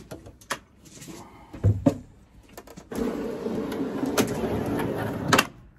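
A few light clicks and knocks, then a steel slide-out drawer running along its runners for about two and a half seconds, stopping with a sharp knock.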